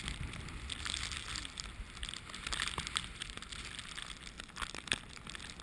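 Snow crunching and scraping in short irregular crackles, with low wind rumble on the microphone.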